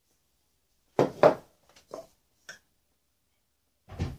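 Hard ABS plastic pipe fittings knocking as they are handled and set down on a wooden workbench. There are two sharp knocks about a second in, a couple of lighter taps after them, and another knock near the end.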